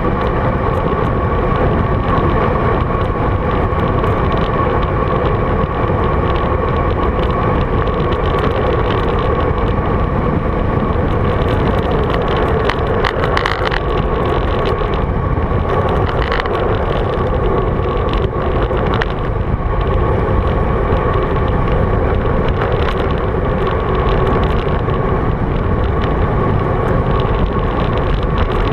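Steady wind noise and road rumble on a GoPro Hero 3's microphone as a road bike rolls along, with a constant hum over the noise and a couple of brief louder rushes about halfway through.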